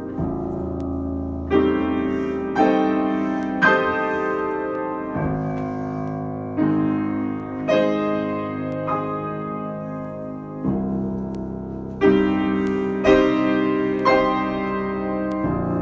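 Piano improvisation: chords struck about once a second over held bass notes, each chord left to ring and fade before the next.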